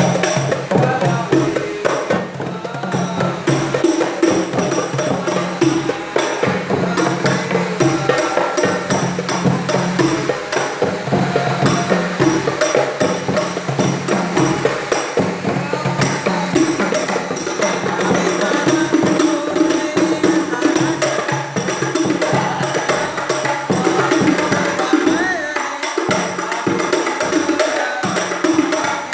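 Terbangan ensemble of rebana frame drums played by hand in a fast, unbroken rhythm, with jingles ringing over the drum strokes.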